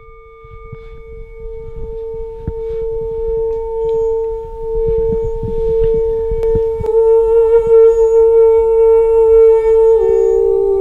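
A single sustained musical note held steady, joined about seven seconds in by a wavering note with vibrato; near the end the sound steps down to a lower pitch. A low, uneven rumble runs underneath.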